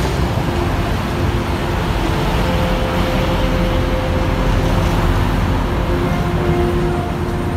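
Steady road traffic noise, a continuous rumble with no single passing vehicle standing out.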